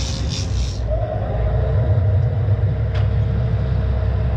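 A sportfishing boat's engines running with a steady low rumble at sea. A faint steady tone joins about a second in, and a single sharp click comes near the three-second mark.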